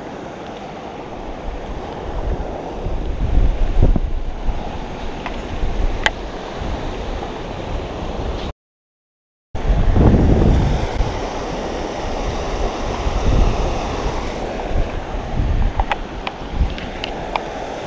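A shallow river running fast over gravel, with wind buffeting the microphone in low, gusty rumbles. The sound drops out completely for about a second halfway through, and a few light clicks come near the end.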